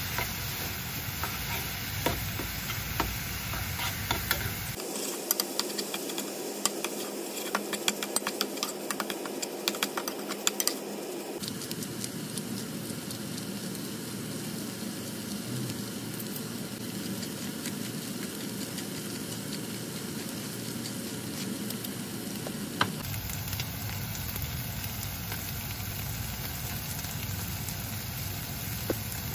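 Diced ham, vegetables and tomato ragu sizzling in a frying pan while a spatula stirs and scrapes through it. The scraping clicks are densest in the first third, then give way to steady sizzling. The sound changes abruptly a few times where the shots are cut.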